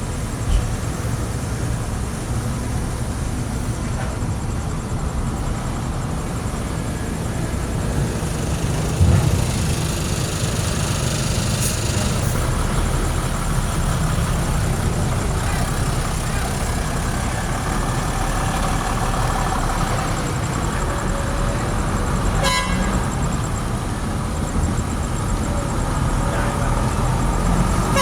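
Steady low rumble of a motor vehicle or heavy machine running, with a few brief clicks.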